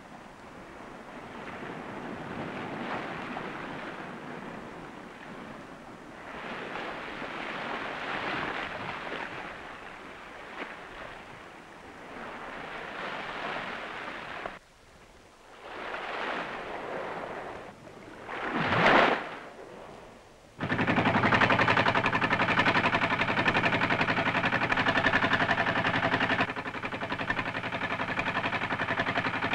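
Sea surf washing in slow swells, with one sharper, louder surge, then about two-thirds of the way through a boat's engine cuts in loud and runs steadily with a rapid, even putter.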